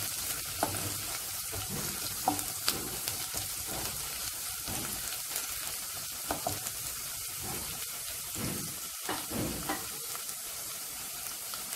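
Chopped ginger and garlic sizzling steadily in hot oil in a kadai, with a wooden spatula scraping and clicking against the pan as it stirs them.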